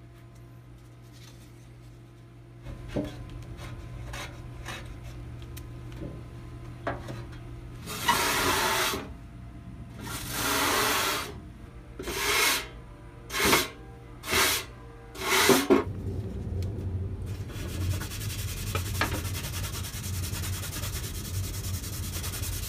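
Scrubbing rust and old grease off a wet steel popcorn-popper pan. A few faint scrapes come first, then about six loud brush strokes of about a second each. In the last several seconds a scouring pad rubs steadily and quickly.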